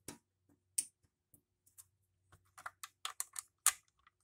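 Small plastic clicks and taps of LEGO bricks being handled and pulled off the model by hand: a few isolated clicks, then a quick cluster in the second half, the loudest near the end.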